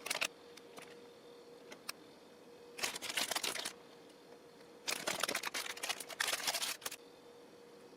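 Rustling and crinkling of plastic food packaging being handled, in three bursts under a second long, with a few light clicks in between, over a faint steady hum.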